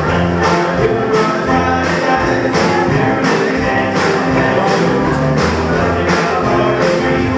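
Live band playing upbeat dance music with a steady beat of about two strikes a second.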